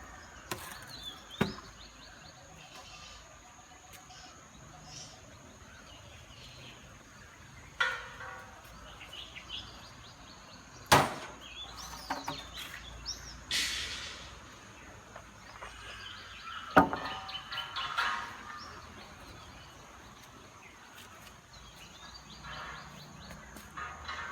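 Scattered knocks and clatters of wooden shutter boards being pulled away from set screed concrete, with a few scrapes in between; the loudest knock comes about 11 seconds in. A faint steady high-pitched tone sits underneath.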